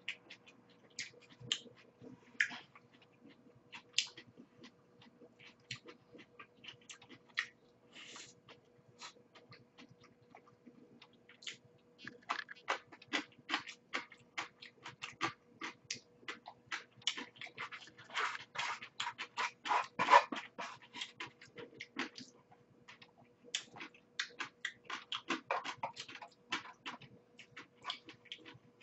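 Close-miked eating: wet chewing and lip smacks, with light clicks of chopsticks against plastic and foam food containers, many short smacks, busiest in the second half. A faint steady hum runs underneath.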